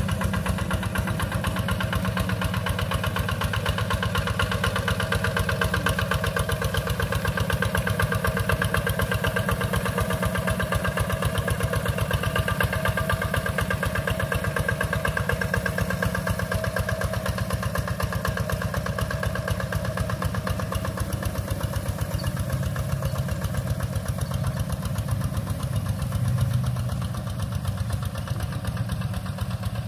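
Two-wheel hand tractor's engine running steadily as it pulls a plow through wet rice-paddy mud.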